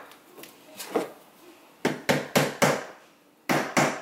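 Hammer tapping the top end of a wooden dowel to drive it into the hole of a wooden base. There are four quick taps about two seconds in, a short pause, then a fast even run of taps, about three a second, near the end.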